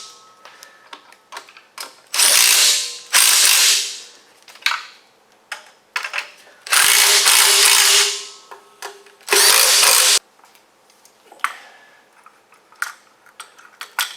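Powered ratchet wrench spinning fasteners in four short bursts, with small clicks and taps of tools between the bursts.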